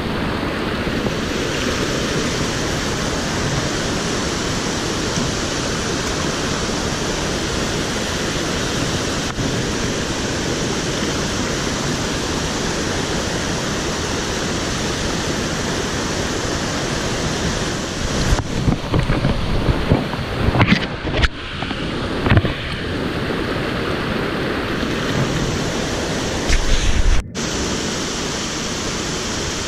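Small mountain stream rushing over rocks in little cascades, a steady hiss of water. About two-thirds through, a few seconds of irregular louder knocks and rustles break in over it.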